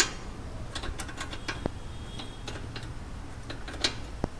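Irregular sharp metallic clicks and clinks of hand tools working on a car's front suspension as bolts and fittings are refitted, over a steady low hum.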